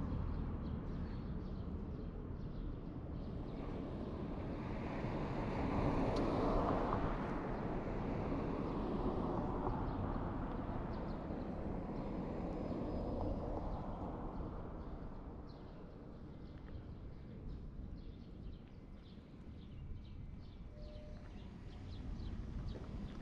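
Outdoor street ambience heard while walking: a steady low rumble that swells for a few seconds about five seconds in, as something passes, then faint footsteps ticking near the end.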